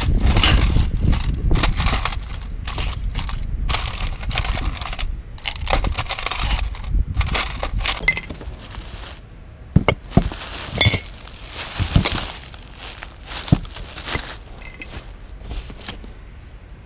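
Hands rummaging through a metal tin of costume jewelry, the pieces clinking and scraping against the tin. Then cloth rustles, and a few sharp, ringing clinks come from drinking glasses in a cardboard box.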